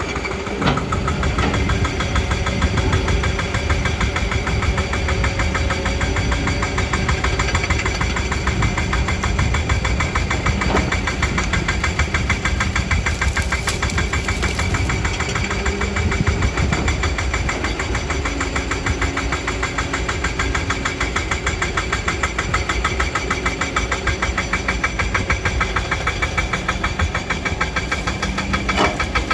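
Kobelco hydraulic excavator's diesel engine running steadily, with a fast, even firing beat.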